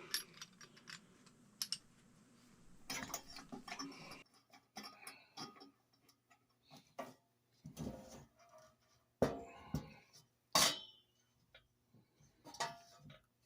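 Small metal parts of a Coleman 220F lantern clicking and tapping as they are fitted together by hand. Two sharper knocks come about nine and ten and a half seconds in.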